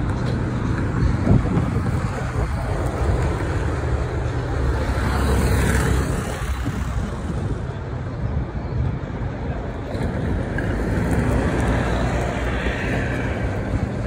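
Road traffic: cars and minibuses driving past on a busy road, one passing louder about five seconds in and another near the end.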